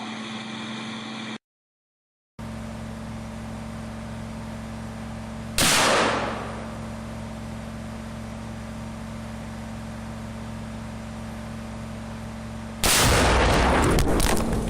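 A rifle shot cracks about five and a half seconds in. About thirteen seconds in comes a louder, longer blast, two pounds of tannerite exploding inside a microwave, with crackle as it dies away.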